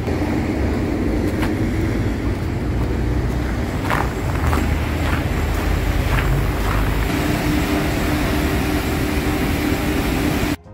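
Steady low rumble and hum of car wash machinery running inside the building, with a few faint footsteps; it cuts off suddenly near the end.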